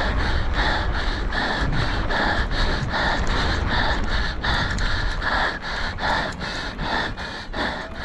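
A mountain biker's heavy, rapid panting under hard race effort, about two to three breaths a second, over a steady low rumble.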